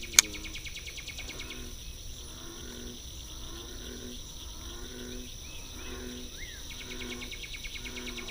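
Insects chirring in a rapid, even pulse, dropping out about two seconds in and coming back near the end, with a few short bird chirps. A single sharp click comes just after the start, and a short low pitched sound repeats about every two-thirds of a second throughout.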